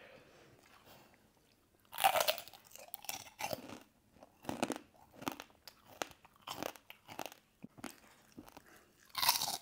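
Crisp prawn crackers bitten and crunched close to clip-on microphones: a quiet start, then a loud bite about two seconds in, a run of irregular crackly crunches, and another loud crunch near the end.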